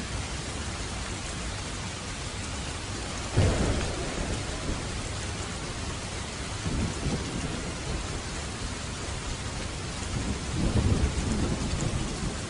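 Steady heavy rain with thunder: a sharp thunderclap a few seconds in, then lower rumbles of thunder twice more toward the end.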